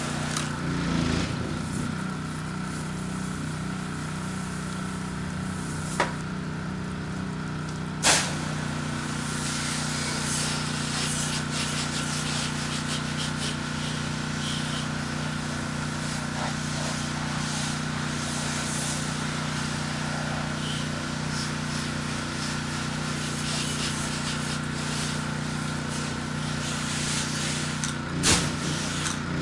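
Pressure washer engine running steadily while water sprays from the wand in a continuous hiss, with two sharp clicks about six and eight seconds in.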